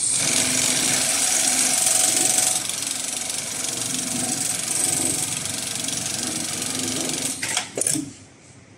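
HighTex MLK500 heavy-duty automatic pattern sewing machine running steadily, stitching a box-and-X pattern through thick polyester sling webbing. Near the end it gives a few sharp clacks and stops.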